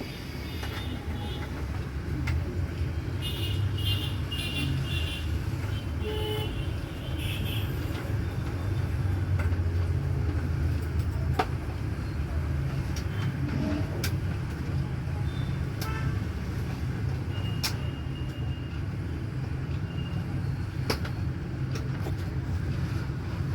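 Steady low rumble of road traffic with short horn toots, and a few sharp clicks.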